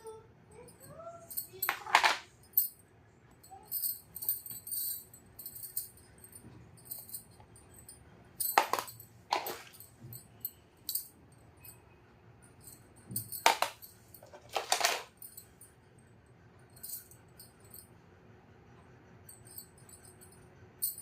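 Small plastic miniature toy kitchen pieces being handled: many light clicks and taps, with a few louder, short handling noises about two, nine and fourteen seconds in.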